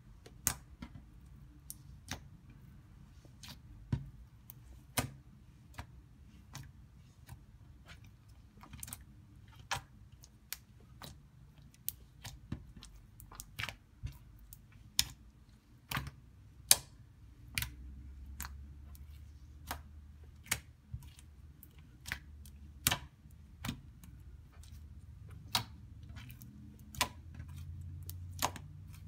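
Clear glitter slime squished and kneaded by hand, giving sharp little wet clicks and pops at irregular intervals, roughly one or two a second.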